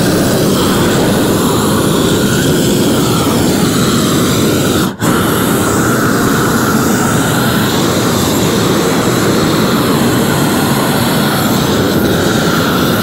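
Propane roofing torch burning with a steady, even rush of flame as it heats and melts the underside of a torch-down modified-bitumen roll and the seam. The sound breaks off for an instant about five seconds in.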